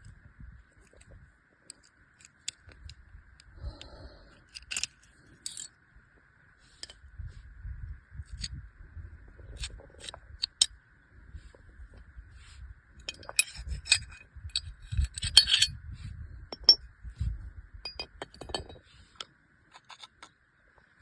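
Metal parts of a Zigana pistol being handled: scattered sharp clicks and clinks as parts are taken off, set down and fitted together, with a cluster of louder clicks in the second half. Dull handling knocks sound between them.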